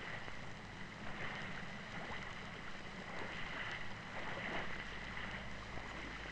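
Faint steady hiss with a low hum beneath it: the background noise of an old film soundtrack.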